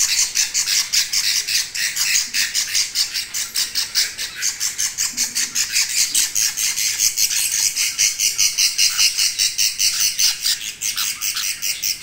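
Budgerigar chicks calling: a fast, steady stream of short raspy chirps, several a second.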